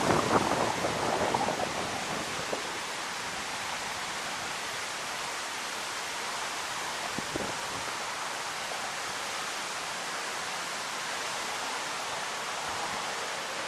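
Steady rushing of the flood-swollen Assunpink Creek, a constant even hiss of water, with a louder, uneven stretch in the first couple of seconds.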